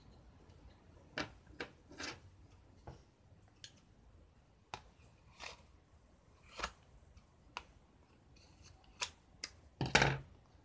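Craft handling sounds: scissors snipping through acrylic yarn wrapped on a card strip, with scattered clicks and rustles of the card, and a louder knock near the end.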